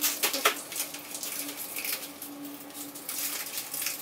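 A few sharp clicks in the first half second, then light scattered metallic ticks from handling a bicycle's handlebars and stem, over a faint steady hum.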